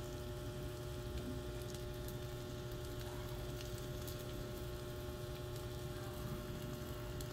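Steady electrical hum, with a few faint clicks.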